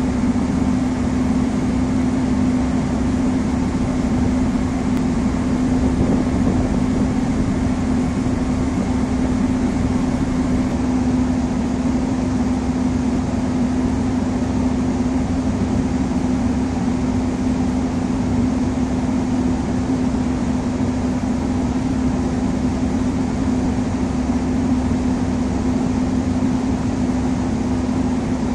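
Steady machinery drone: a constant, unchanging hum over a rushing noise.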